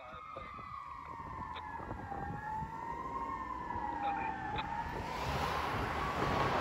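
Fire engine siren wailing, its pitch slowly falling and rising again, getting louder as the engine approaches. From about five seconds in, a rushing noise builds up under it.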